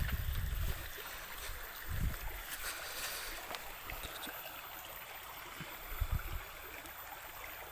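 Small river's water running steadily, with a few low dull bumps at the start, about two seconds in and about six seconds in.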